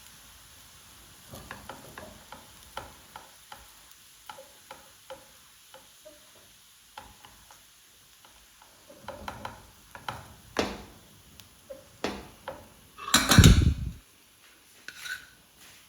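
Spoon stirring in a cooking pot: a run of irregular light taps and scrapes against the pot, growing louder and busier later on, with a loud scuffing knock near the end.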